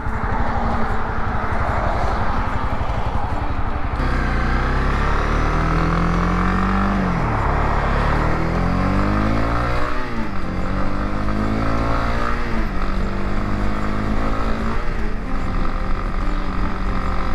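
Honda CB300R single-cylinder motorcycle engine pulling through the gears: its pitch climbs and drops sharply at a shift about seven seconds in, climbs again and drops at another shift near ten seconds, then holds a steady cruise. Wind rushes past the microphone throughout.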